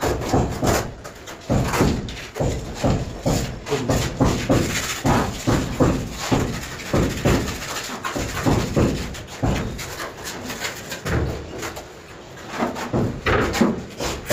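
Steel notched trowels scraping tile adhesive across a rough cement-plastered wall in repeated, irregular strokes, about one to two a second.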